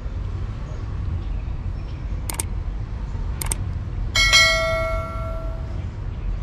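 Subscribe-button animation sound effect: two mouse clicks about a second apart, then a bright bell ding that rings out for about a second and a half. A steady low rumble runs underneath.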